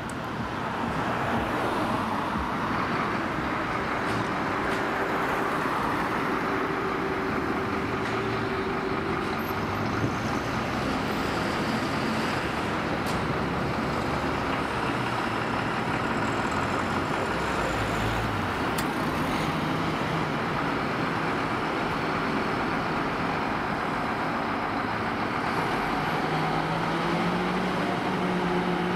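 Large diesel fire-truck engines running with a steady heavy rumble. Near the end one engine note rises as a Scania fire engine pulls out of its bay.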